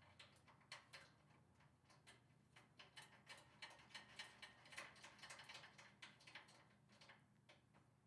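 Rapid, light clicking and ticking as a screw is turned into a server rack's front mounting rail to fasten a 1U horizontal finger-duct cable manager. The clicks come thickest in the middle seconds and thin out near the end.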